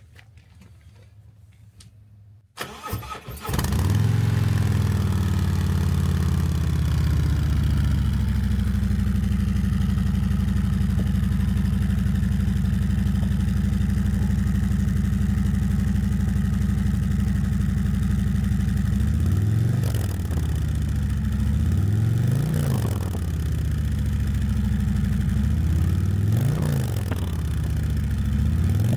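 Harley-Davidson Milwaukee-Eight 114 V-twin on its stock mufflers starting up about three seconds in and settling into a steady idle. Near the end it is revved in four short throttle blips, each rising and falling back to idle.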